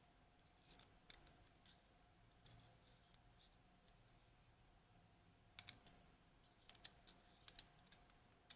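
Light, sharp metallic clicks and ticks of small lock parts being handled as a Kaba Gemini S dimple lock is taken apart, a few about a second in and a quick run of them in the last three seconds.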